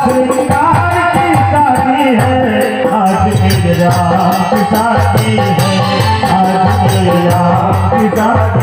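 Loud amplified devotional bhajan through a stage PA system: a voice singing a melody over electronic keyboard, with a steady shaker-like beat.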